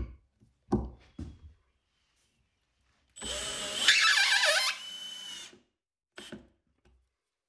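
Cordless drill/driver driving a screw through a wooden coat-rack board into a pine-board wall for about two and a half seconds, its motor whine loudest in the middle of the run. A few light knocks come before it and one after.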